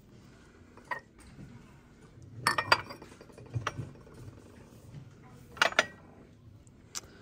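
Ceramic cups clinking against each other and a glass shelf as they are picked up and set back down. There is a single clink about a second in, a louder cluster of clinks about two and a half seconds in, another cluster near six seconds, and one last tap near the end.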